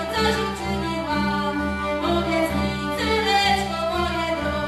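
Traditional Polish folk music from a string band, a fiddle carrying the melody over a steady pulsing accompaniment.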